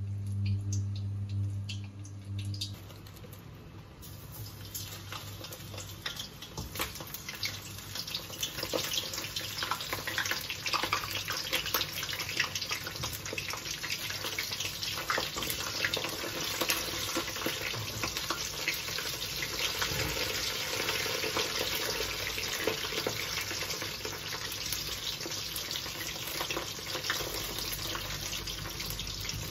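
For the first few seconds, a steady low hum over a pot of boiling rice noodles. Then battered shrimp deep-frying in a wok of hot oil: a dense, continuous crackling sizzle.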